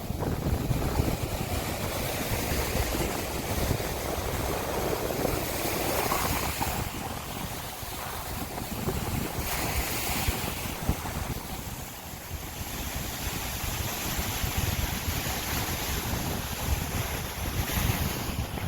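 Ocean surf breaking and washing up the beach, the hiss swelling every few seconds, with wind buffeting the microphone as a low rumble.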